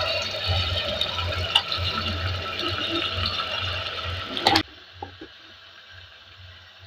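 Raw beef pieces sizzling and crackling in hot oil and fried spice paste in a pressure cooker. The sizzle cuts off suddenly a little past halfway, leaving only a faint low hum.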